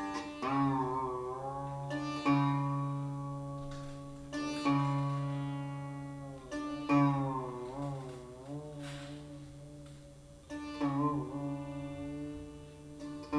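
Sitar playing slow, spaced phrases: single plucks left to ring while the note is bent up and down by pulling the string, with steady drone notes sounding underneath. The tabla is silent.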